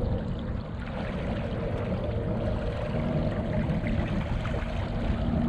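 Fast tidal current rushing and splashing steadily against a kayak's hull.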